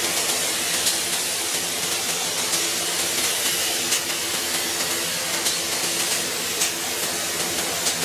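Gravity-feed air spray gun hissing steadily as it sprays epoxy primer, over a faint low steady hum.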